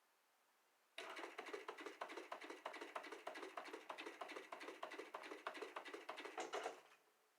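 Consew 226R-1 walking-foot industrial sewing machine sewing a stitch sample: a rapid, even clatter of needle strokes. It starts abruptly about a second in and stops near the end.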